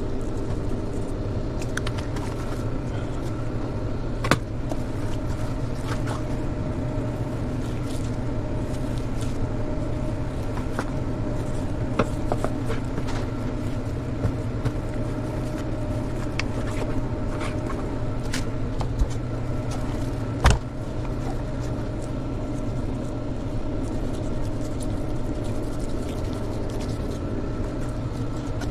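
Steady machine hum throughout, with scattered light knocks and clicks of a knife and meat on a plastic cutting board; one sharper knock about two-thirds through.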